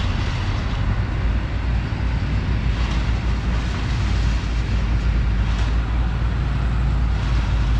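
Diesel engines of a sugarcane harvester and an Isuzu Deca 320 cane truck running together in the distance as the truck is loaded with cut cane, a steady low rumble.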